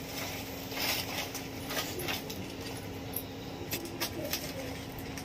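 Plastic grocery bags rustling and crinkling in short irregular bursts as they are handled, over a steady low hum.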